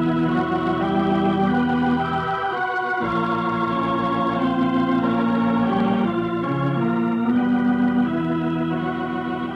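Organ musical bridge: sustained chords changing every second or so, an interlude marking an act break in a radio drama.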